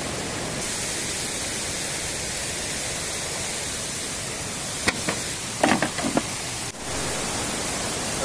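Fast-flowing jungle stream rushing over rocks, a steady even rush of water. About five seconds in there is a sharp click, followed by a few short knocks.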